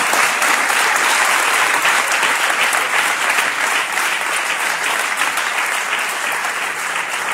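A large audience applauding, a dense steady clatter of many hands that grows slightly quieter toward the end.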